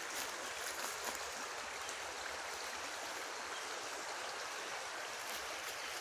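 Shallow river flowing over gravel and cobbles, a steady rushing.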